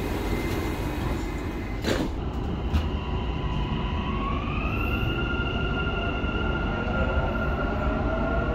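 Dubai Metro train running with a steady rumble and hiss, with a sharp click about two seconds in. Around four seconds in, the electric traction motors' whine rises in pitch and then holds steady as the train gathers speed.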